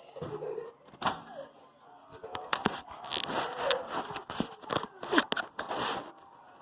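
Irregular food-preparation handling noises: rustling, scraping and sharp clicks, like packaging and utensils being handled.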